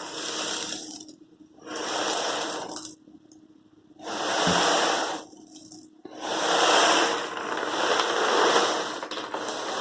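A box making a swishing, rushing sound like water or sea waves, in four rushes with short pauses between them, the last one the longest. There is a single low knock about halfway through.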